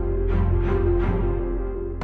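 Background music with a steady beat: held low tones under a strike that repeats about three times a second.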